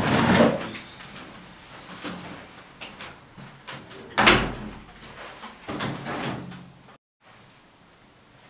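A series of bumps and thuds, the loudest about four seconds in, with a pitched creak-like sound around six seconds. About seven seconds in the sound cuts off abruptly to faint room tone.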